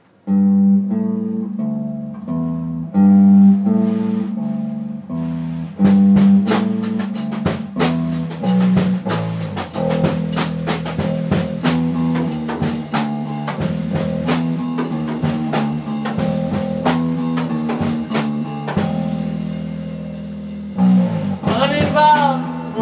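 Live band playing a blues-rock instrumental intro on electric instruments. A low, repeating plucked-string riff plays alone at first, then a Gretsch drum kit comes in about six seconds in with cymbals and snare, and the band plays on together.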